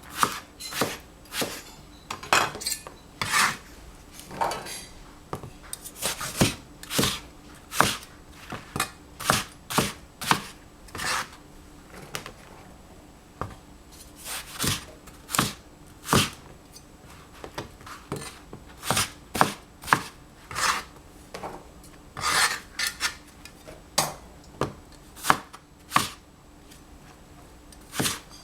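Large kitchen knife cutting tender eggplant on a cutting board: sharp, irregular knocks of the blade hitting the board, about one or two a second, with a few short pauses.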